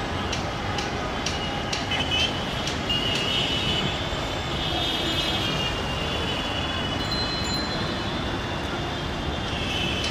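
Steady running noise of a crowded passenger train moving along the track, with wheels clicking over the rail joints in the first second or two. Wavering high voices of a crowd beside the line come and go over it.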